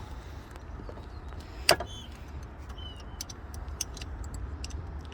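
Hand tools clinking on metal while the diverter valve on the Audi 2.0 TFSI is being unbolted: one sharp clink about a second and a half in, then a run of light ticks, over a steady low hum.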